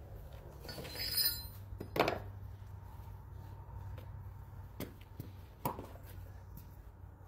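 A light metallic clink about a second in, then a few scattered knocks, spaced like footsteps on concrete, over a steady low hum.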